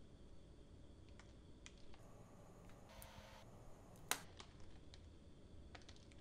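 Faint, small clicks and crackles as a chocolate-coated Choco Pie cake is pulled apart by hand, with a brief soft tearing sound a few seconds in and one sharper click just after it.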